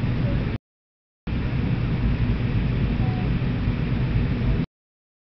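Steady cabin noise of an MD-82 airliner just after takeoff: the low roar of its rear-mounted jet engines and the rush of air, heard from inside the passenger cabin. The sound cuts out completely twice, for about half a second each time.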